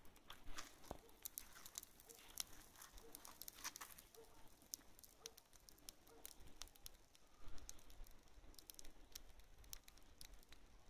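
Untreated dry hay burning, giving a faint crackle of scattered sharp pops and snaps.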